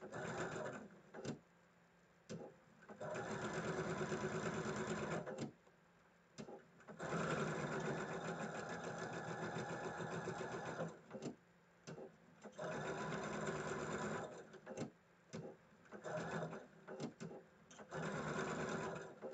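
Electric sewing machine stitching a seam in stop-start runs of one to four seconds, the longest in the middle, with short clicks in the pauses between runs.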